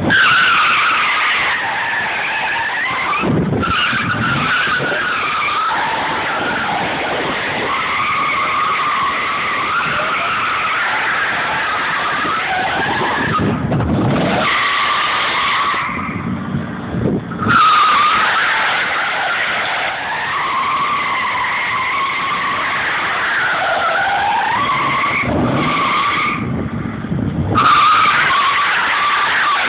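Ford Lightning pickup's tyres squealing on pavement while it drifts in doughnuts: long, continuous squeals that waver in pitch, broken a few times by short gaps with low rising surges of sound.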